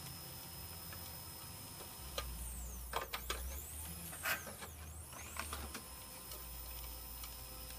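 A machine running: a low steady hum with faint thin whines, and a few sharp clicks in the middle.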